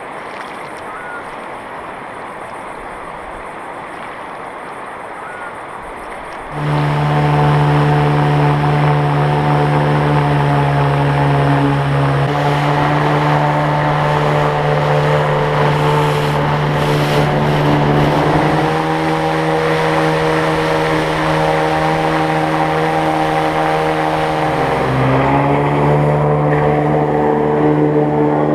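Rushing water of a fast mountain river, then about six seconds in a Mercury 25 jet outboard on an inflatable tunnel boat cuts in loud, running hard at steady high revs as it drives the boat upstream. Near the end the engine pitch dips briefly and climbs back.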